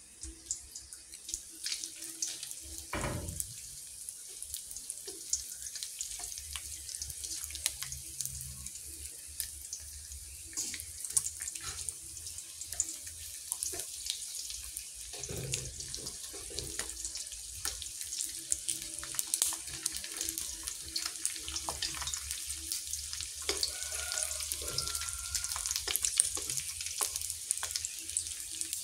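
Dried yellowstripe scad frying in a shallow layer of oil in a wok on low heat: a steady sizzling hiss with many small crackles. There is a dull thump about three seconds in.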